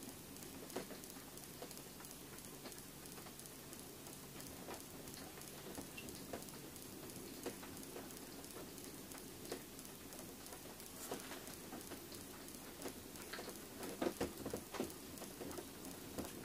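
Quiet ice-fishing tent: faint scattered ticking and patter over a low steady hum, with a short cluster of louder knocks and rustles near the end as the angler leans over the ice hole to handle his line.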